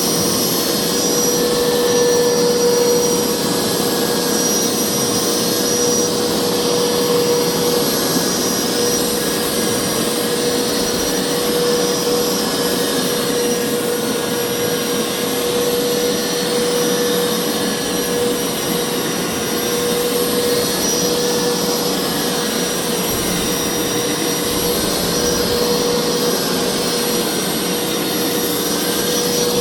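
Hoover carpet cleaner running steadily, a loud, even motor and suction noise with a steady mid-pitched whine.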